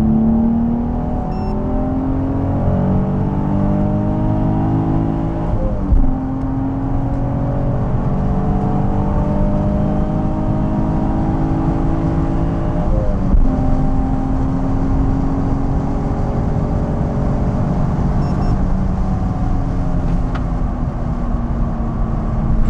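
Nissan 350Z's VQ35DE 3.5-litre V6 under full throttle, heard from inside the cabin during a 100–200 km/h pull. The engine note climbs steadily and drops sharply at upshifts about 6 and 13 seconds in, then climbs again.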